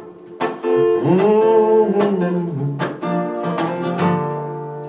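Acoustic guitar strummed in rhythm, with a man singing a long held note over it; near the end a chord is left ringing and fades.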